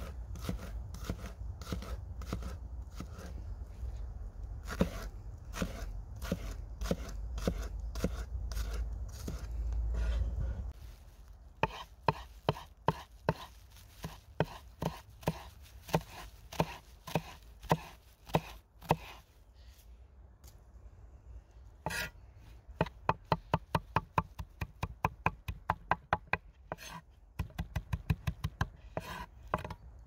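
Knife chopping food on a cutting board, a long run of short sharp strokes: spaced cuts at first, then a fast, even series of chops later on.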